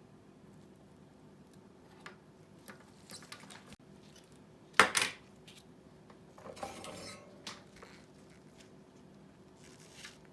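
Small hard objects and tools being handled on a work surface: scattered light clicks and clinks, one sharp clack about five seconds in, and a brief scrape or rustle a little later.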